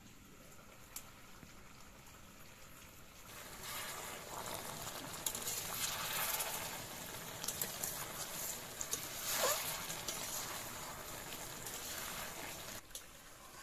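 Fish and bottle gourd curry simmering and sizzling in an iron wok while a metal spatula stirs it, with scrapes of the spatula against the pan. It is quieter at first and grows louder about three seconds in, staying at that level until shortly before the end.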